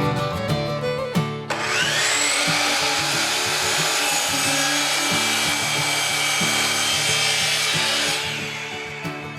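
Power saw whining up to speed and cutting through wood for about six seconds, then winding down. Bluegrass background music plays underneath.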